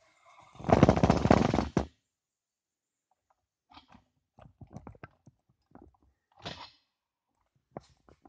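Metal hand tools working on the engine's clutch and flywheel bolts: a loud rattle of rapid clicks lasting a little over a second, then scattered light clicks and knocks.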